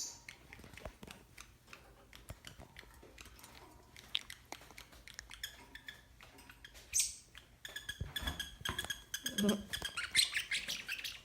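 Bird calling: a short high call about seven seconds in, then a run of high, repeated calls near the end, over a few faint clicks.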